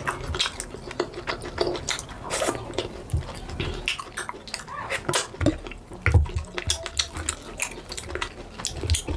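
Close-miked wet eating sounds of fufu being eaten: rapid, irregular lip smacks, squelches and chewing clicks.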